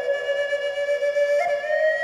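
Background music of Native American flute playing a long held note that steps up slightly about one and a half seconds in.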